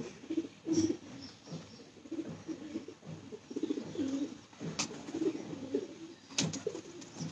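Domestic pigeons cooing over and over in low, pulsing calls, with two sharp clicks in the second half.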